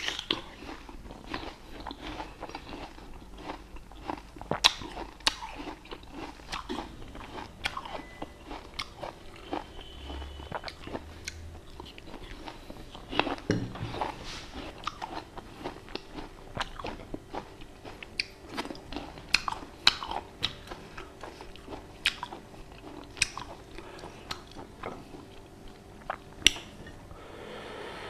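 Close-up chewing and crunching of fresh fruit, a steady run of irregular crisp crunches and wet chewing sounds, with a few louder bites scattered through.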